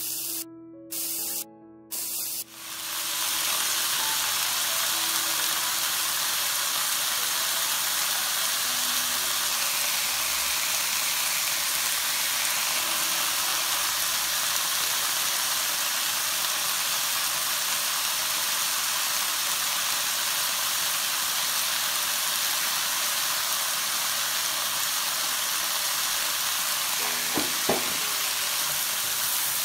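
Chive and carrot strips sizzling steadily in hot oil as they are stir-fried in a wok, the frying hiss starting about two seconds in after a brief choppy snatch of music. A couple of light knocks near the end.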